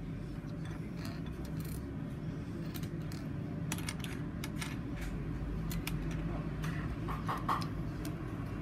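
Small plastic Lego pieces clicking and rattling as they are handled and pressed together, a scatter of sharp little clicks over a steady low hum.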